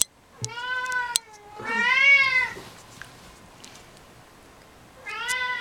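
Domestic cat giving three long, drawn-out yowls, each rising and then falling in pitch, the middle one the loudest. These are the sexual calls of a cat mounting a hat.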